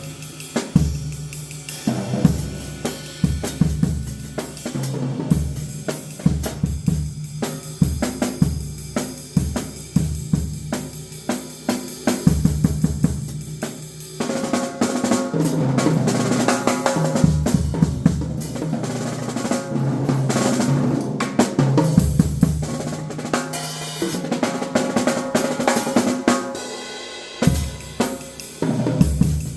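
Acoustic drum kit played solo: fast runs on snare, toms and bass drum with hi-hat, rimshots and cymbals. About halfway through the cymbals come in more heavily.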